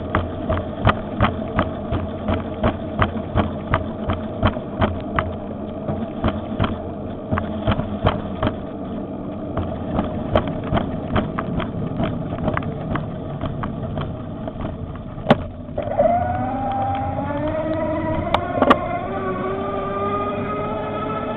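Electric bicycle motor whining under road and wind noise, with a regular clicking about twice a second. After a sharp click about three-quarters of the way through, the motor whine rises steadily in pitch as the bike speeds up.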